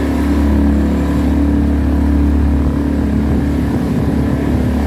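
Outboard motor of a small open boat running steadily under way, an even drone that holds one pitch throughout.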